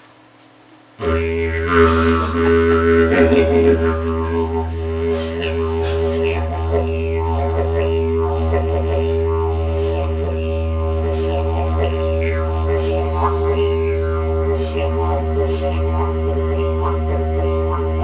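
Hand-crafted wooden didgeridoo played: a steady low drone starts about a second in and is held without a break, with rich overtones and shifting rhythmic accents over it.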